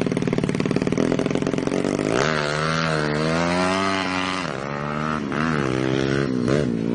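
Yamaha Jupiter single-cylinder four-stroke drag bike engine, bored out to 180cc, revving. It runs fast and even, then from about two seconds in its pitch swings up and down several times as the throttle is blipped.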